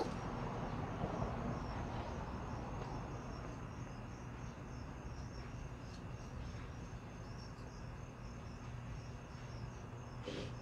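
Crickets chirping in a steady, even rhythm over a low background hum, with a brief scuff near the end.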